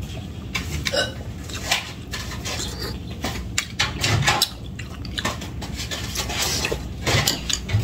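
Metal spoon clinking and scraping against a ceramic soup bowl while soup is eaten: scattered light clicks and taps.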